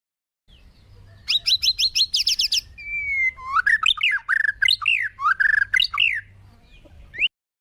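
Bird calls: a quick run of about eight high chirps, then a string of whistled notes sliding up and down in pitch. The calls start suddenly and cut off sharply near the end.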